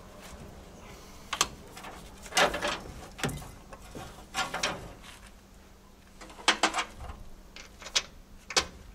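Scattered metallic clanks and knocks of engine parts being handled by hand, about eight in all, some in quick pairs.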